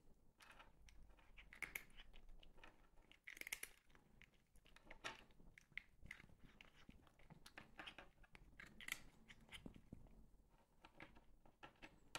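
A cat crunching and chewing small dry filled cat treats: faint, irregular crunches.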